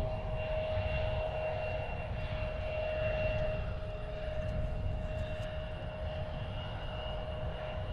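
Twin-engine widebody jet airliner rolling down the runway, its engines giving a steady whine over a low rumble.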